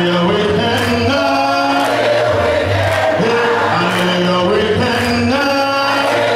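A cappella gospel congregational singing: a male song leader on a microphone and the congregation singing long held notes in harmony, stepping from chord to chord.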